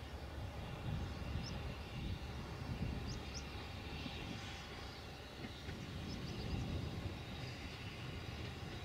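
Narrow-gauge steam locomotive 'Prince', Ffestiniog Railway No 2, working toward the listener with a coach, heard as a steady low rumble that swells and eases.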